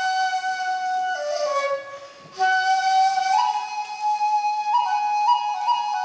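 Shakuhachi playing a slow minyo melody line, stepping from note to note, with a brief breath pause about two seconds in.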